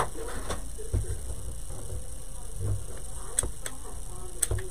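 A few light clicks and taps as a hot glue gun and small wooden craft pieces are handled on a work table, over a low steady hum.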